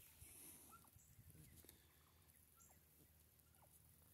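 Near silence, with faint short bird calls, each dropping in pitch, about once a second.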